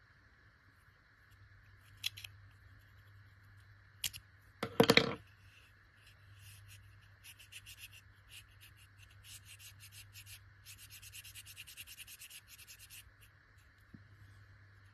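Small pocket knife being scraped and rubbed down in a tight spot to clean out rust: a couple of sharp clicks, a loud rasping scrape about five seconds in, then a run of quick, even rubbing strokes.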